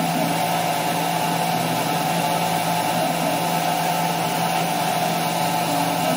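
CNC router spindle running at a steady speed, its small end mill cutting clear acrylic sheet, with a jet of compressed air hissing at the cutter to blow the chips clear. The hum and hiss stay constant throughout.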